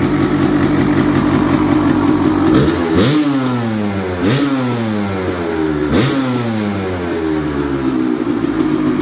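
Freshly rebuilt 1996 Suzuki RMX250 two-stroke single-cylinder engine idling, then blipped three times in quick succession, each rev rising sharply and falling slowly back to idle. The engine is running cleanly after its rebuild.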